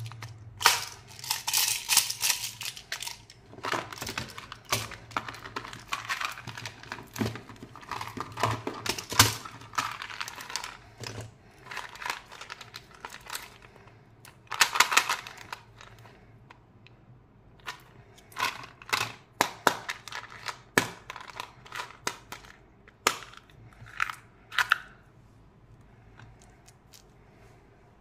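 Plastic candy toys and small plastic candy boxes handled close to the microphone: many sharp clicks, taps and rustling handling noises, with hard candies rattling. Busy through the first half, then sparser, separate clicks.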